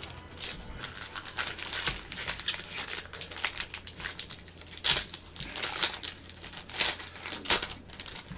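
Plastic wrapping from football trading card packs being torn open and crumpled by hand: irregular crinkling and crackling, with a few louder crackles around five and seven seconds in.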